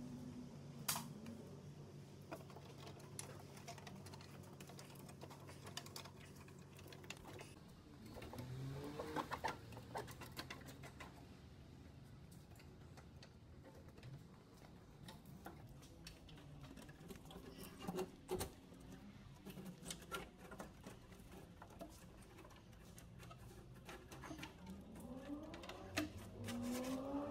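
Faint scattered clicks and rattles of a wiring harness being handled and fastened along a vehicle chassis, with a steady low hum at first and a couple of rising buzzes about a third of the way in and near the end.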